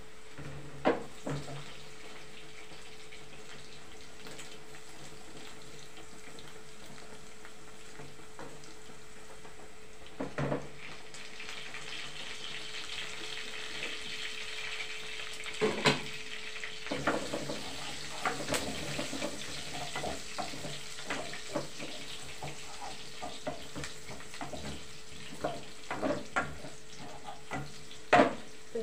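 Pots of stew and spaghetti cooking on a gas stove, with a steady hum and a soft sizzling hiss that grows from a little before halfway. A few knocks of a spoon against a pot stand out. From just past halfway, a wooden spoon stirs the stew with many light clicks and scrapes.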